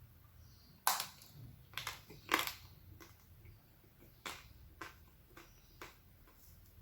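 Bites and crunching chews on a crispy chocolate monaka ice cream: a wafer shell with crispy chocolate inside. About half a dozen sharp crunches, the loudest about a second in and again near two and a half seconds.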